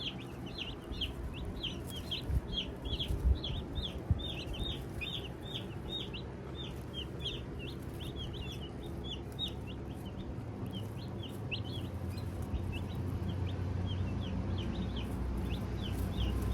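A brood of Jumbo Cornish Cross meat chicks peeping non-stop, many short high downward-sliding peeps overlapping, over a steady low rumble that grows louder toward the end.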